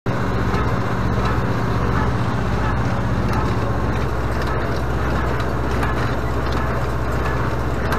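Renault 656 tractor engine running steadily under load, driving a Renault small square baler as it picks up and presses second-cut clover hay, heard from the tractor seat.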